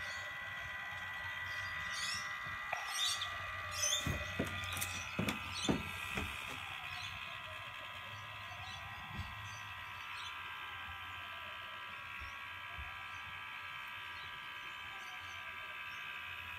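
Auspit rotisserie's small electric motor running with a steady whine as it turns the spit. A few clicks and knocks come between about two and six seconds in.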